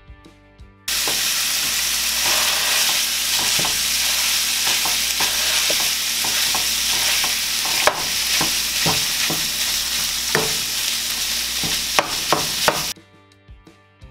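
Ground beef sizzling loudly in a nonstick frying pan, with the repeated scrape and tap of a plastic spatula breaking the meat up. The sizzle cuts in suddenly about a second in and cuts off suddenly near the end, leaving quiet background music.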